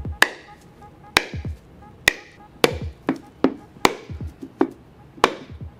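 A metal hammer strikes the shell of a drained coconut, worked around its middle to crack it in half: about nine sharp knocks at uneven intervals.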